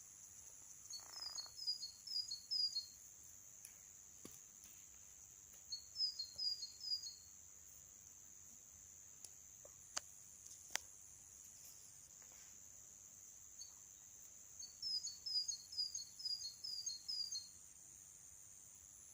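A small songbird sings three short phrases of quickly repeated high notes: four or five notes near the start, about four in the middle, and a longer run of about seven towards the end. A steady high-pitched hiss runs underneath, and a couple of sharp clicks come near the middle.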